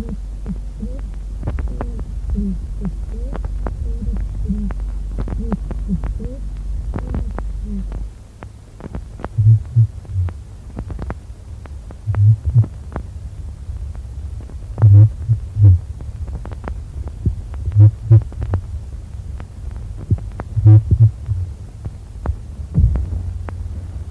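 Stethoscope recording of bronchophony: a patient's spoken words carried through the chest wall, heard only as low, muffled sounds. For about the first eight seconds they are faint over a steady low hum, the weakened bronchophony over dullness from pleural effusion. After that they come through as short, loud, low bursts about every three seconds, the enhanced bronchophony above the fluid level.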